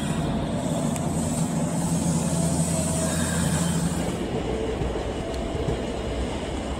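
A train running on the rails: a steady low hum with a high hiss that fall away about four seconds in, leaving a rougher low rumble.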